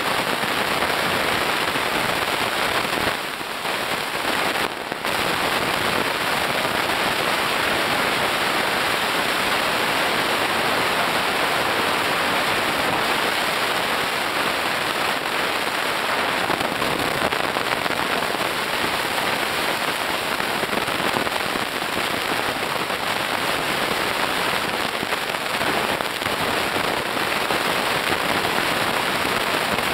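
Dense, steady underwater crackle of snapping shrimp on a coral reef, heard through the camera's housing. It dips briefly about three to five seconds in.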